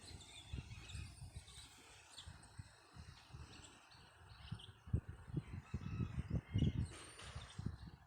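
Birds calling and chirping in short, scattered calls, with a brief louder call about seven seconds in, over wind buffeting the microphone.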